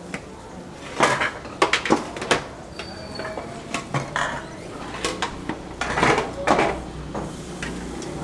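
Metal tongs clinking and scraping against a large aluminium pot and its conical lid while pieces of goat tengkleng are lifted out: a run of sharp metal clanks and clatters, in a cluster about a second in and again around six seconds in.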